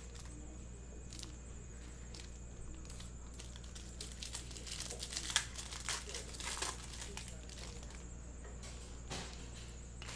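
Plastic card-pack wrappers crinkling and trading cards being handled and set down in piles, in scattered rustles and light taps that are busiest around the middle. A low steady hum runs underneath.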